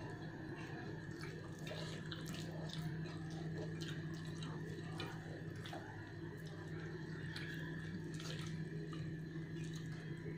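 Close-up eating sounds: wet chewing and lip smacks, and fingers working food on a steel tray. They come as many small scattered clicks over a steady low hum.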